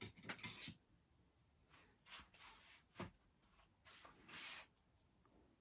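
Near silence, with faint handling noises from parts and tools being moved and one light knock about three seconds in.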